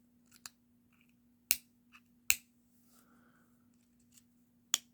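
Small hand tool prying the top cover off a BMW E90 paddle shifter unit: a few short sharp clicks and snaps, three of them loud (two in the first half and one near the end), with fainter ticks between.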